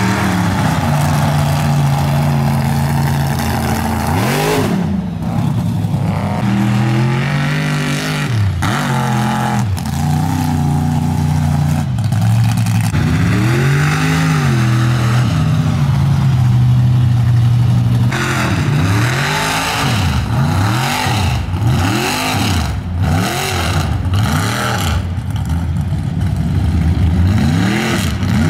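Lifted mud-bog trucks' engines revving hard as they churn through deep mud, the pitch surging up and dropping again and again. The sound changes abruptly a few times as one truck gives way to the next.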